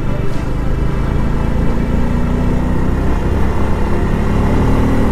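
Motorcycle engine running under way, heard over a steady low rumble of wind on the camera microphone; the engine note rises slightly from about a second and a half in as the bike gathers speed.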